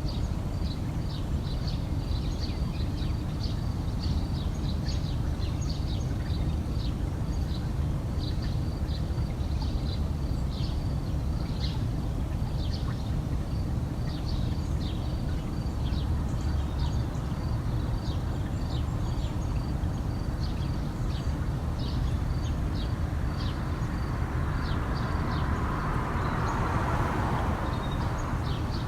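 Small birds chirping, short high notes repeating again and again over a steady low rumble. Near the end a louder, lower sound swells and fades over a few seconds.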